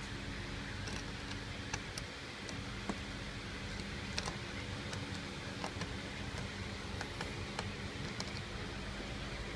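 Faint, irregular small metal clicks of a hex key working a screw inside a car's dashboard headlight switch, over a steady background hum.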